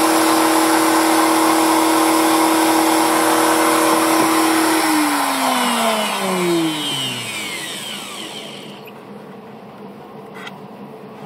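Table-mounted router running at full speed with a steady high whine, then switched off about five seconds in: its pitch falls steadily as the bead bit spins down and the whine fades out over the next few seconds. A light knock comes near the end.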